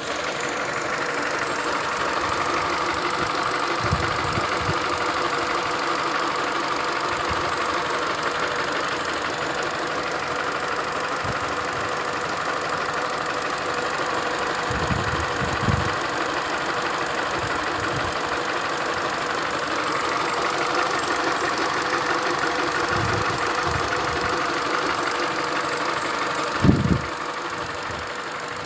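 Engine of a 2008 Peugeot 207 SW running steadily at idle, showing a noise the owner finds abnormal. A few short low thumps come through, the loudest near the end.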